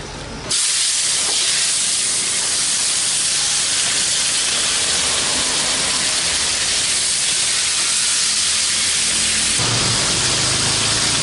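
Hot cooking oil sizzling loudly in a frying pan as pieces of raw giant gourami fish deep-fry. The sizzle starts suddenly about half a second in and then holds steady.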